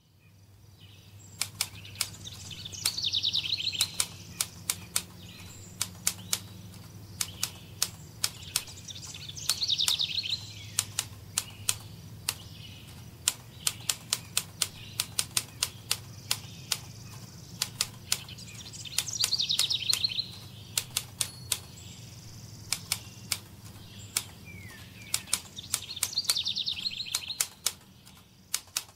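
Computer keyboard typing in quick, irregular runs of clicks, starting about a second and a half in. A bird trills in the background four times.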